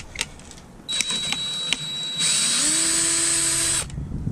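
Handheld electric drill spinning a screwdriver bit to back out screws. It starts about a second in, gets louder and rises in pitch partway through, then stops short shortly before the end.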